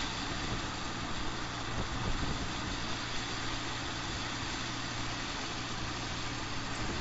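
Volkswagen Taigo small SUV driving: a steady engine hum over tyre and road noise.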